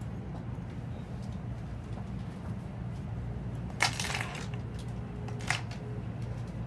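Steady low hum inside a Tokaido Shinkansen passenger car, broken by two brief sharp crackles, the louder one about four seconds in and a shorter one about a second and a half later.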